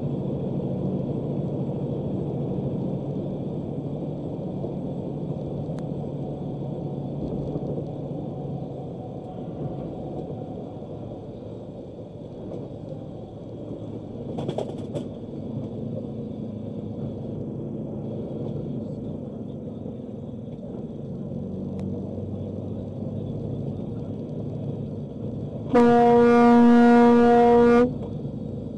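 Steady engine and road noise inside a semi truck's cab, then near the end one loud, steady blast of about two seconds on the truck's horn, sounded at a car that has cut in front and brake-checked the truck.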